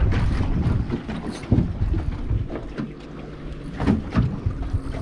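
Wind buffeting the microphone on a small aluminium boat at sea, a gusty low rumble, with a few sharp knocks about a second and a half in and again near four seconds.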